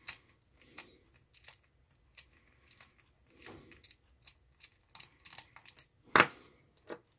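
Small precision screwdriver backing self-tapping screws out of a plastic pen-type multimeter case: scattered light clicks and ticks of the bit and screw against the plastic, with one louder clack about six seconds in.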